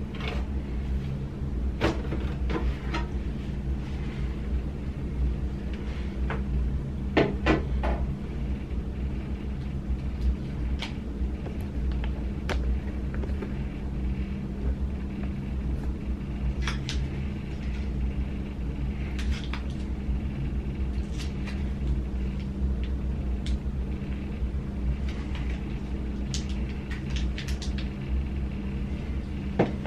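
Scattered sharp clicks and knocks of hard parts being handled, two loudest in quick succession about a quarter of the way in, over a steady low electrical hum.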